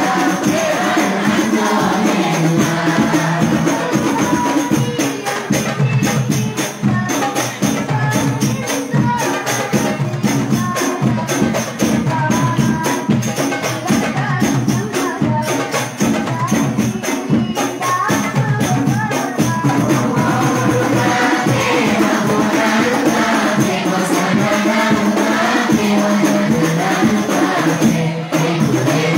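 Hadroh ensemble: frame drums (rebana) beaten in a fast, steady interlocking rhythm under a group of male voices singing sholawat together, the voices coming through more strongly in the last third.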